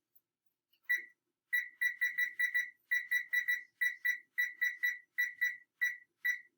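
Electronic timer keypad beeping as buttons are pressed to set the cooking time: about twenty short, high single-pitch beeps, a few per second at uneven spacing, starting about a second in.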